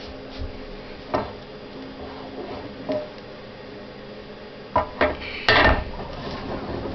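Metal parts clinking and knocking: a handful of separate sharp clinks, then a louder rattling clatter about five and a half seconds in, over a faint steady hum.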